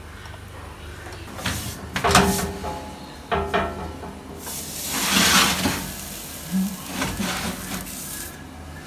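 A kitchen utensil knocks twice against cookware with a short ring, then scrapes against it for several seconds.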